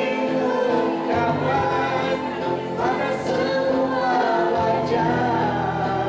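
A man and a woman singing a Malay pop duet into microphones, amplified over backing music, with long held notes.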